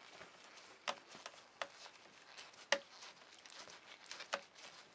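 Light, irregular clicks and taps from the plastic housing of a Xerox DC240/250-series drum unit as a screw is driven back into its end cover with a screwdriver, the loudest click a little under three seconds in.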